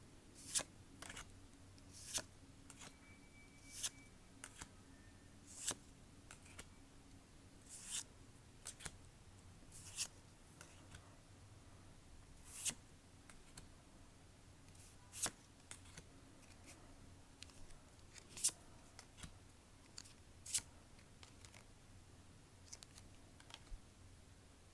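Pokémon trading cards and their foil pack being handled: a crisp snap or rustle about every one to two seconds, over a faint low hum.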